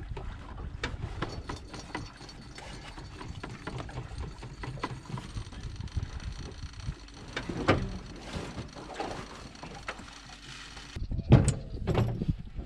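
Light knocks and rattles of a plastic jerry can and fuel hose being handled in a small aluminium boat, over a steady low rumble. Several louder knocks come near the end.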